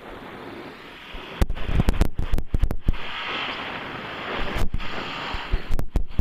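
Strong wind buffeting the microphone, growing into heavy gusty rumbling about a second and a half in, with the sound cutting out briefly several times.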